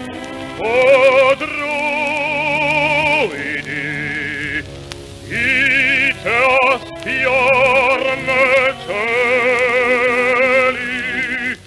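Operatic singing with a strong, even vibrato, sustained phrases with short breaks over a lower accompaniment, played back from a 1950s acetate radio-programme disc on a turntable.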